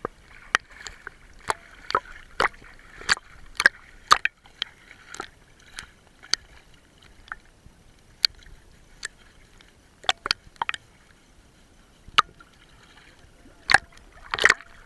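Water splashing and sloshing close to the microphone as a baby Asian elephant bathes and is washed by hand, in sharp, irregular splashes, about two a second at first, sparser in the middle and bunched again near the end.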